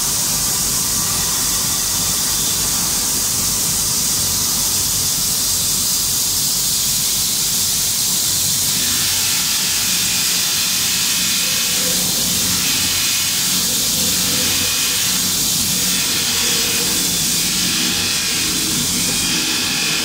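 Abrasive belt sanding machine grinding a spinning stainless steel barrel to a sun-ray finish: a loud, steady, high hiss of belt on metal, whose tone shifts about nine seconds in.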